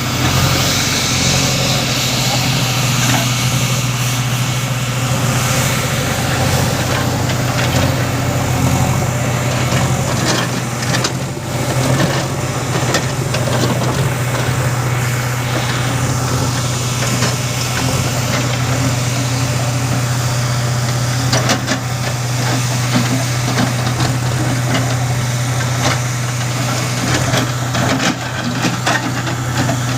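Diesel engine of a JCB 3DX backhoe loader running steadily, with a few short knocks along the way.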